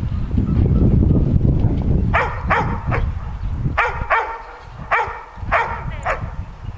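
About eight short animal calls in quick succession, starting about two seconds in, over a low rumble of wind on the microphone.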